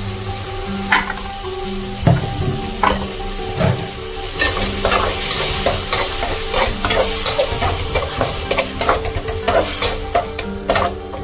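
Onion and ginger-garlic masala sizzling in hot oil in a pan while a spoon stirs and scrapes it. Repeated sharp clicks of the spoon against the pan come thicker from about four seconds in.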